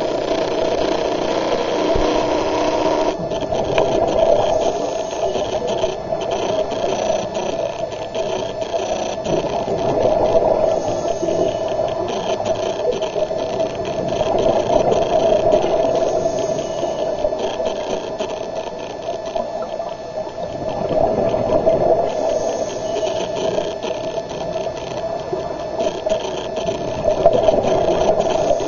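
A steady mechanical drone with a rattling edge, heard underwater, slowly rising and falling in loudness.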